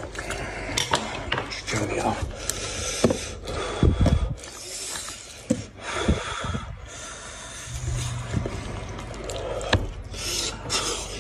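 A knife scraping against a cooked goat's head and the meat being pulled and torn apart by hand: irregular rubbing and scraping with scattered clicks, and a dull knock about four seconds in.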